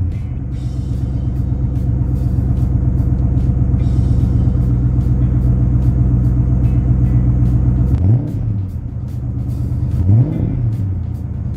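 Stock 5.0 L V8 of a 1993 Ford Mustang Fox body, fitted with a Pypes cat-back exhaust, idling with a steady low burble just after starting. About eight and ten seconds in, the throttle is blipped twice, each rev rising and falling quickly.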